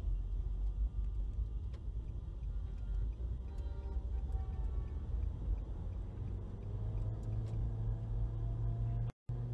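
Low, steady rumble of a car driving at highway speed, heard from inside the cabin. The sound cuts out completely for a moment near the end.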